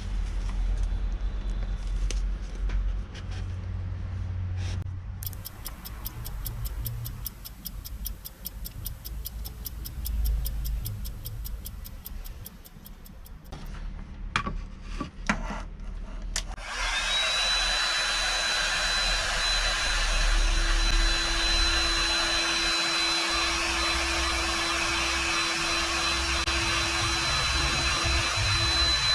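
Small electric motor of a homemade power tool spinning up a little over halfway through, then running steadily with a high whine. Before it there are low rumbling, knocks and a stretch of fast, even ticking.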